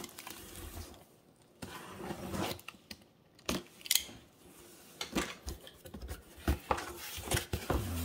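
Cardboard box being handled and opened: the box is turned over and its flaps pulled open. The result is scattered knocks, scrapes and rustles of cardboard, sparse at first and more frequent from about halfway through.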